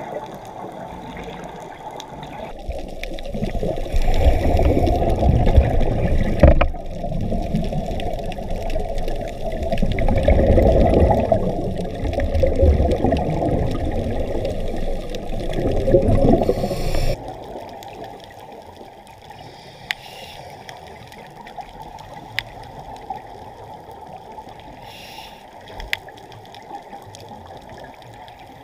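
Muffled underwater water noise, rushing and gurgling in strong surges. A little past halfway it drops suddenly to a low, steady hiss with a few scattered sharp clicks.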